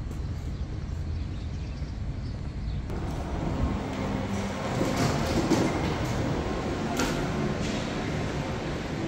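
Passing through a shopping mall's automatic glass sliding doors: a low outdoor rumble gives way, about three seconds in, to the fuller indoor ambience of the mall, with a few sharp clicks.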